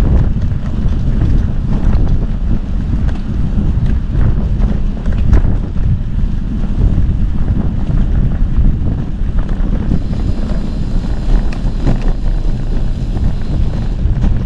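Heavy wind buffeting the microphone, a steady low rumble, with a few sharp knocks.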